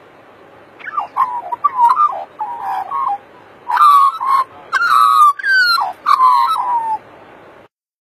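Australian magpie carolling: a run of clear, fluting, warbling notes with quick slides in pitch, starting about a second in and going on for some six seconds, over a faint steady background hiss.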